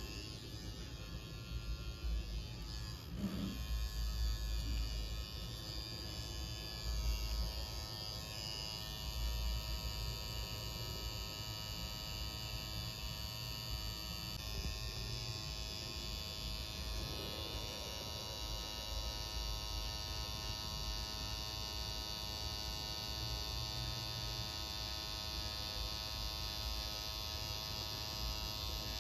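Tattoo machine buzzing steadily as it needles red ink into the skin, with a few low bumps in the first several seconds.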